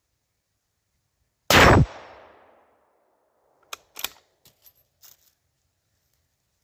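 A single rifle shot from a bolt-action 7.62×39 rifle, its report fading away over about a second. A few sharp metallic clicks follow, the bolt being worked.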